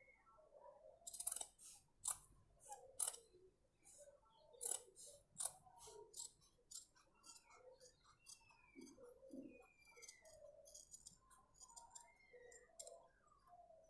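Tailor's shears snipping through stiff buckram interlining: a run of short, crisp snips, the sharper ones in the first half and quicker, lighter ones near the end.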